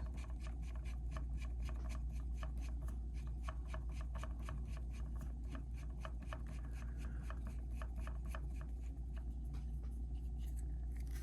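The air reservoir of an Umarex Notos PCP rifle being screwed by hand onto its plenum: a steady run of small clicks and rubbing, several a second, from the threads and handling, over a low hum.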